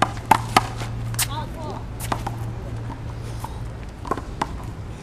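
Sharp slaps of a rubber handball being struck by hand and rebounding off a concrete wall and court, several in quick succession in the first second or so. Fainter taps and footsteps on the concrete follow, with a brief voice.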